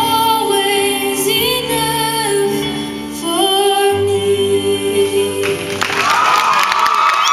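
A female solo voice sings held, wavering notes over piano accompaniment at the close of a worship song. About five and a half seconds in, the audience breaks into cheering and whooping over the last note.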